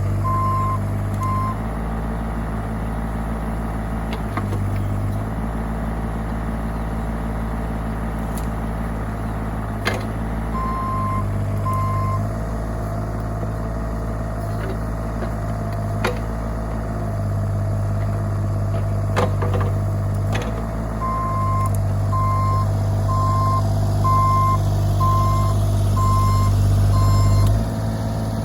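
Bobcat E35 mini excavator's diesel engine running steadily under varying load, with its travel alarm beeping about twice a second in three spells: at the start, about ten seconds in, and for several seconds near the end. A few sharp knocks stand out over the engine.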